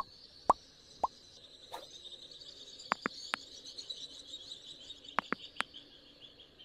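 Outdoor natural ambience at a cliff-face nest: a steady high chirring, with three short sharp plops in the first second and a few thin clicks around three and five seconds in.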